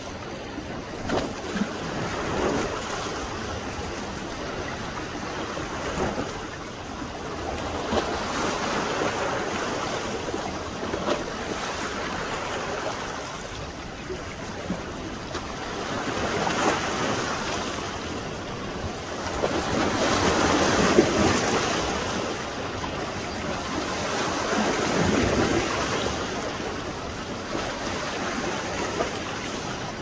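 Surf from a rough sea breaking on a sandy beach and washing up the shore. The rush of water swells and ebbs several times and is loudest about two-thirds of the way through. A few short knocks stand out above it.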